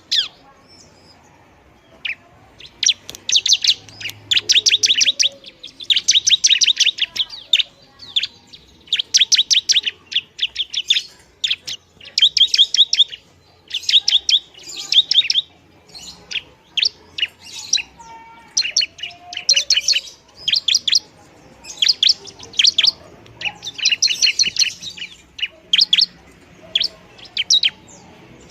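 Bar-winged prinia (ciblek) singing loudly in rapid, noisy bursts: fast trains of sharp, high chips, each burst lasting about a second, repeated with short pauses.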